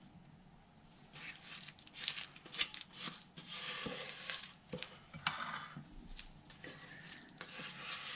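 Silicone spatula scraping thick apple bread batter out of a stainless steel mixing bowl into a glass loaf pan: faint, irregular scrapes and dabs.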